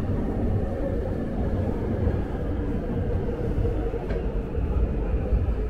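Seoul subway train running: a steady low rumble with a faint steady hum.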